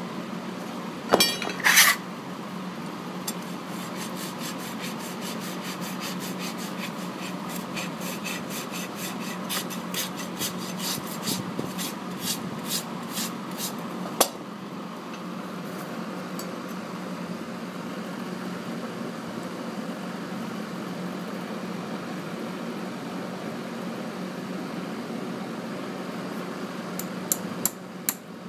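Farrier's hand tools working on a draft horse's hoof. A couple of loud strokes come about a second in, then a quick, even run of short strokes, two to three a second, for about ten seconds. After that a steady hum continues, with a few sharp knocks near the end.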